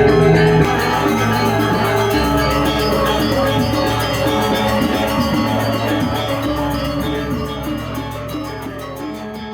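Balinese gamelan music with bronze metallophones ringing, gradually fading out.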